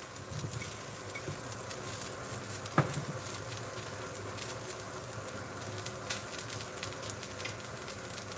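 Broccoli and potato cubes frying in oil in a stainless steel pan: a steady, light crackling sizzle with scattered small pops, and a single knock about three seconds in.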